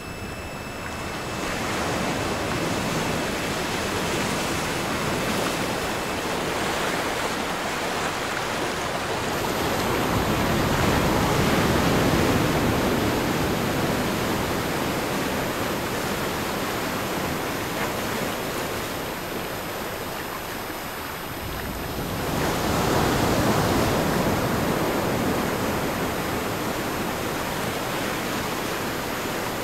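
Recorded ocean surf, waves washing in with a steady rush that swells and eases off, loudest twice. Faint steady high-pitched tones sit over the surf, one stopping about six seconds in and another starting about nine seconds in.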